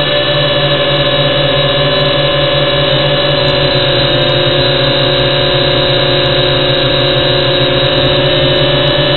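WLToys V686 quadcopter in flight, its brushed motors and propellers making a steady whine of several close pitches.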